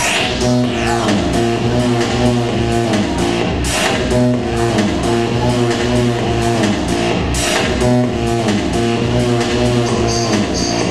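Loud dance music played by a DJ through a PA sound system, with a steady beat, a sustained bass line and a loud swell about every four seconds.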